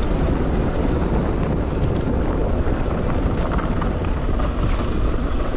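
Wind rushing over a GoPro action camera's microphone and mountain bike tyres rumbling over a rough trail while riding, with a few sharp rattles.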